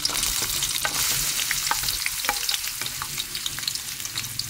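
Chopped onion frying in hot cooking oil in an aluminium wok: a steady sizzle peppered with many small crackling pops, easing off slightly near the end.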